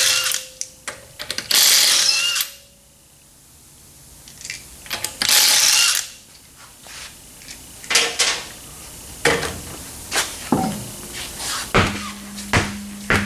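Impact wrench spinning lug nuts off a wheel in three bursts of about a second each, followed by a series of short metallic clinks and knocks as nuts and tools are handled.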